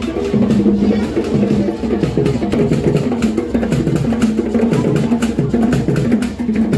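Music with drums and percussion keeping a steady, repeating beat over sustained low notes.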